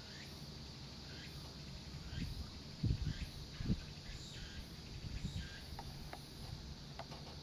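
Insects trilling steadily at a high pitch, with faint short chirps repeating about once a second. Wind buffets the microphone in low rumbles a couple of seconds in.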